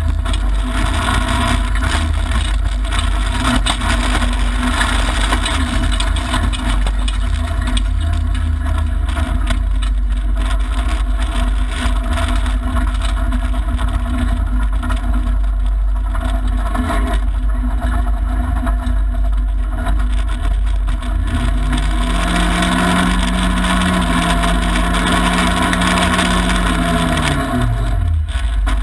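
Mitsubishi Lancer Evolution IX rally car's turbocharged 2.0-litre four-cylinder engine running hard, heard from inside the cabin over steady low rumble and tyre noise on gravel. About twenty seconds in, one engine note climbs, holds for several seconds and drops away.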